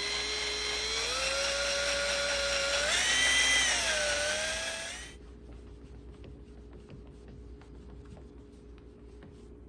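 Power tool driving a buffing wheel, whining as it buffs wax into a plastic headlight lens; the pitch climbs in steps, rises and dips around three to four seconds in, then cuts off about five seconds in.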